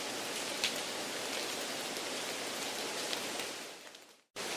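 Steady rain noise, an even hiss with a few faint drop ticks, mixed in as background noise. It fades out over the last second or so, goes silent for a moment, then starts again abruptly near the end.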